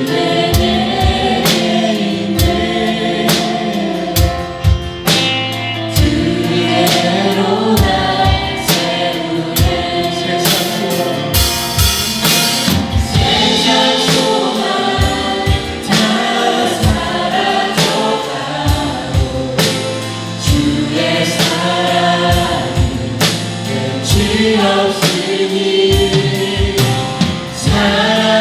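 Church praise band and singers performing a contemporary worship song, with voices over a drum kit keeping a steady beat.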